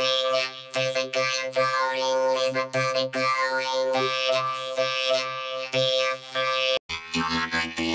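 A sung female pop vocal run through FL Studio's Vocodex channel vocoder, turned into a synthetic, chord-like robotic voice with steady pitches that follow the words' rhythm. Just before the end it cuts out briefly and comes back with a different, buzzier vocoder preset.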